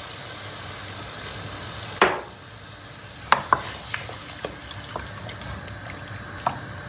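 Water sizzling as it goes into a hot pot of browned chicken and vegetables, then a knock about two seconds in. After that a wooden spoon stirs the pieces, tapping sharply against the side of the granite-coated pot several times.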